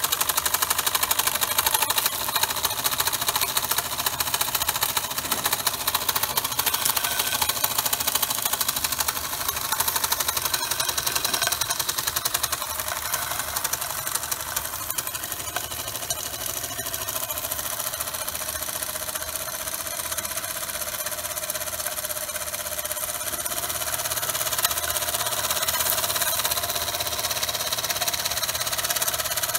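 Antique Bing "Monna" toy steam engine running fast, its cylinder giving off rapid, even beats of exhaust steam. The sound eases a little midway and grows again towards the end.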